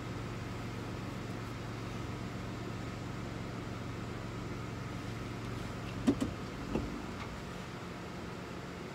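Steady hum of a vehicle idling, heard from inside the cabin, with two quick clicks and a softer knock about six seconds in.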